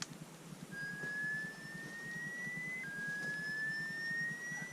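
A thin, steady electronic-sounding tone that slowly rises in pitch over about two seconds, drops back suddenly and rises again, repeating about twice, over a low rumbling background.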